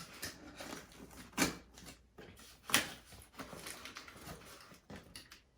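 Packaging being handled: scattered rustles and light knocks of a cardboard box, with two louder sharp ones about a second and a half and nearly three seconds in.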